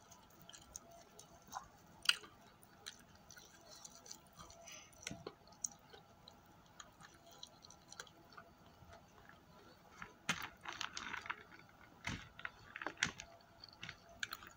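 Close-up chewing and mouth smacks of a person eating fried chicken with her fingers, with scattered soft clicks, busier about two-thirds of the way through.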